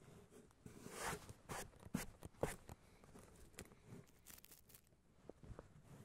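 Freshly sawn pine boards being slid by hand across the log on the sawmill bed and stacked, wood scraping on wood with a brief scrape about a second in. Several sharp wooden knocks follow around the two-second mark, then lighter clicks and rustles.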